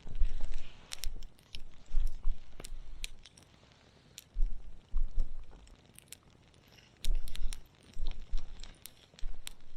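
Wood campfire crackling: sharp, irregular pops and snaps scattered throughout, with a few short bursts of low rumble in between.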